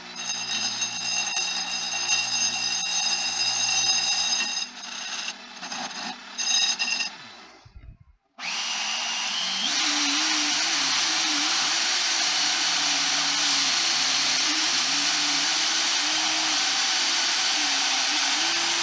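Power sander running, sanding the end of a mild steel bar to round it over. It cuts out about eight seconds in, then starts again and runs steadily.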